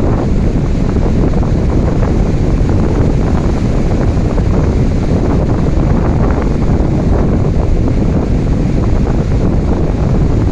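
Ocean waves and rain: a loud, steady rush of water noise with no distinct lulls or single breakers.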